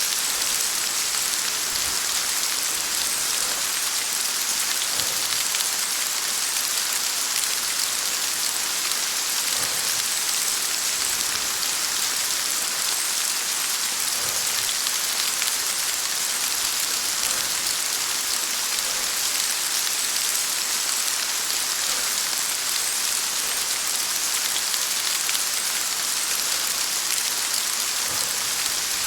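Steady rain falling: an even hiss, with faint separate drips now and then.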